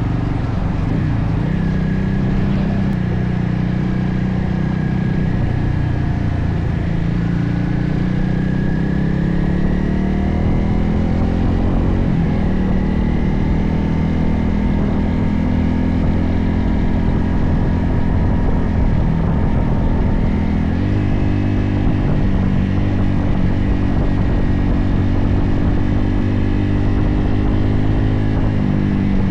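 Motorcycle engine running while riding, under a steady rush of road noise; its pitch climbs as it speeds up about a third of the way in and shifts again about two thirds of the way through.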